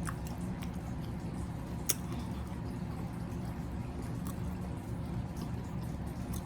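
Wet mouth sounds of someone eating seafood: smacking and sucking with scattered sharp clicks, one sharper about two seconds in, over a steady low hum.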